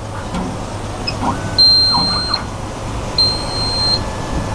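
High-security key-cutting machine running with a steady motor hum as it cuts the first side of a Lexus key. A high electronic beep sounds twice, each under a second long, about a second and a half apart.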